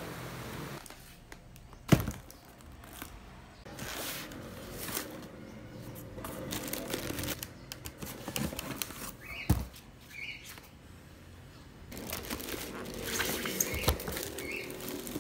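A cardboard box being opened and a plastic-wrapped sandwich maker unpacked: cardboard rustling and plastic wrap crinkling, with a sharp knock about two seconds in and another a little past the middle.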